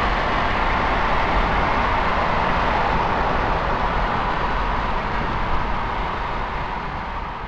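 Steady road and wind noise of a vehicle driving at highway speed, slowly fading away near the end.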